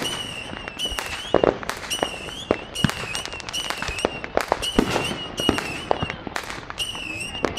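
Consumer fireworks going off in rapid succession: a string of shrill whistles, each about half a second with a wavering pitch, mixed with many sharp bangs and pops.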